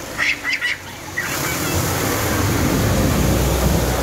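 Three short sharp noises about half a second in. Then a lifted 4x4 pickup drives out of a deep ford close by, with water rushing and spraying off its tyres and its engine growing louder from about two seconds in.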